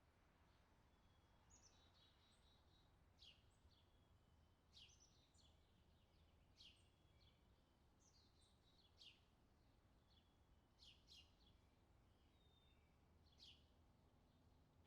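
Faint bird chirps: short, sharp calls every second or two, with a few brief warbled notes, over a low steady background rumble.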